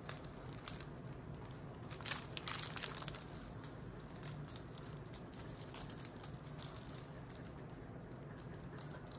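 Soft rustling and crackling of crate bedding as a dog shifts in its crate, with a louder cluster of crackles about two to three seconds in, over a steady low hum.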